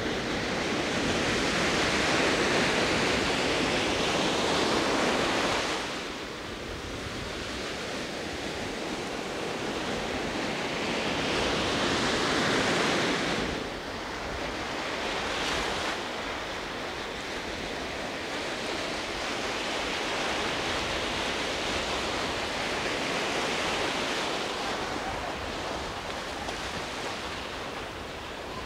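Sea surf breaking on a beach: a steady rushing wash of waves, with two big surges of breaking surf in the first half before it settles to a steadier, softer wash.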